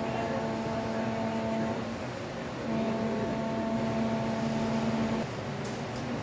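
Ferryboat's horn sounding two long, steady blasts: the first, already going, stops about two seconds in, and the second starts a second later and holds for about two and a half seconds.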